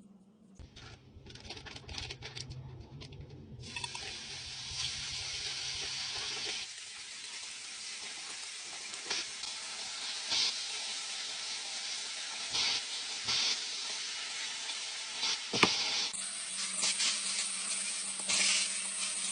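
Bacon sizzling in a frying pan: a steady hiss with scattered small pops, changing abruptly a few times.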